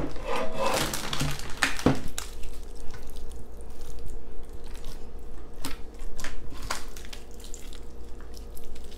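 Hands stretching and working a sticky transparent slime, with small wet clicks and squelches. A metal baking pan clatters on the table a few times in the first two seconds.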